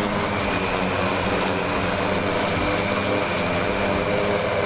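Four brushless electric motors and propellers of a quadrotor biplane drone spinning steadily as it lifts off the ground: an even hum with a thin high whine on top.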